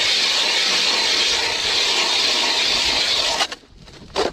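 Battery-powered ice auger boring a hole through about four and a half inches of pond ice: a loud, steady whir of the motor and blades cutting ice, which stops suddenly about three and a half seconds in.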